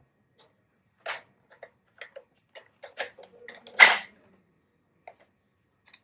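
A toy and its packaging being handled: irregular light clicks and knocks, with one louder crackle about four seconds in.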